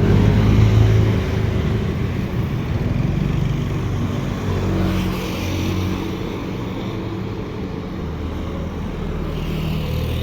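Road vehicles running and passing close by, a steady engine drone that swells and eases off a little.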